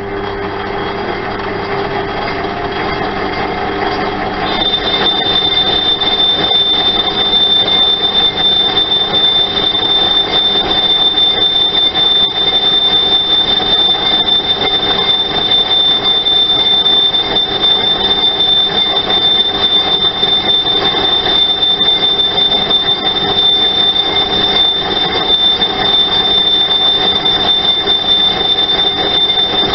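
Metal-cutting machine tool cutting cast iron, running steadily with a loud, steady high-pitched squeal from the cut that sets in about four seconds in.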